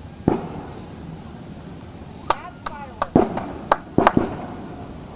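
Fireworks going off: one sharp bang, then a quick string of about seven cracks over two seconds, some trailed by short falling whistles.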